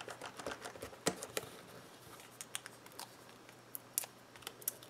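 Hands pressing a paper embellishment onto a kraft cardboard gift box and handling small paper pieces: scattered soft clicks, taps and paper rustles, a few sharper ticks about a second in and near the end.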